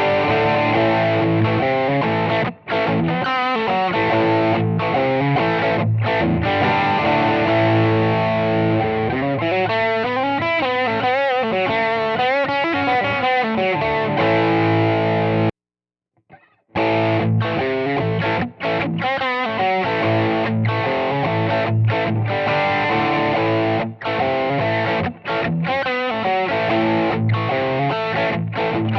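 Electric guitar played through a DIY Lovepedal Eternity overdrive pedal clone, with overdriven chords and single notes, some bent or with vibrato. The first clip is played with a JRC062D op amp in the pedal. After a brief break about halfway, the same kind of playing follows with an LM833N op amp fitted.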